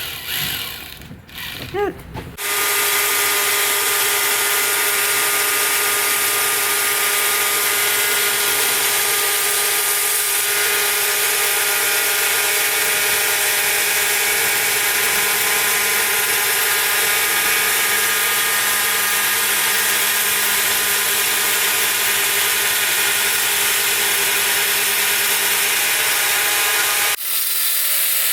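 A power tool or similar motor-driven machine starts a couple of seconds in, runs steadily with a constant hum and hiss, and cuts off suddenly near the end.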